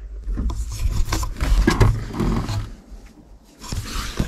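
Rostselmash RSM 2375 tractor's diesel engine being started: a rough, rasping sound over a low rumble, which dips briefly about three seconds in and then comes back.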